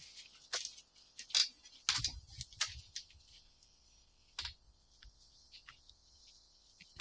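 Irregular light clicks and taps from hands working with tools and materials, about a dozen over several seconds, with a faint steady hiss behind them.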